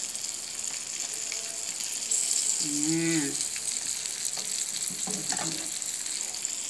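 Oil sizzling steadily around galunggong (round scad) frying in a pan, getting louder about two seconds in, while a spatula scrapes stir-fried cabbage out of a nonstick wok. A short hummed voice sound comes about three seconds in.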